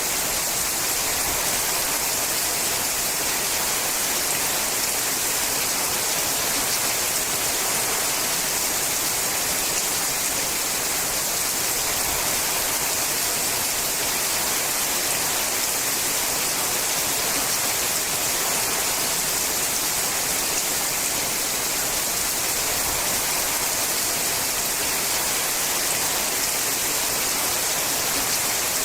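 Steady rain falling on a sheet-metal roof, an even hiss that doesn't let up.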